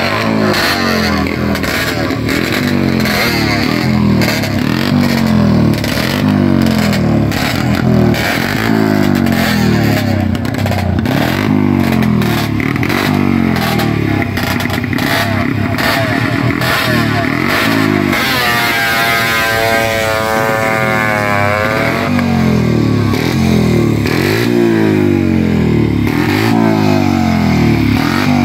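Classic racing motorcycle engines idling at the start line while their throttles are blipped again and again, the pitch rising and falling about once a second. About two-thirds of the way through, a higher-pitched engine revs up and drops back for a few seconds.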